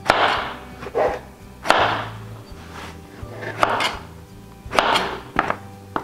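Kitchen knife chopping peeled cucuzza (Sicilian serpent squash) into chunks on a plastic cutting board: about six separate chops, each a sharp knock of the blade going through onto the board, unevenly spaced.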